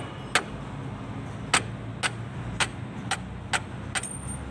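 Hammer striking a pin into the steel coupling sleeve on a tractor's splined propeller shaft: about eight sharp metallic taps, mostly about half a second apart, with one longer pause after the second. A steady low hum runs underneath.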